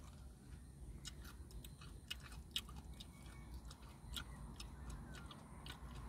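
A person chewing a mouthful of food close by, with irregular small crunchy clicks a few times a second, over a low steady rumble in a car's cabin.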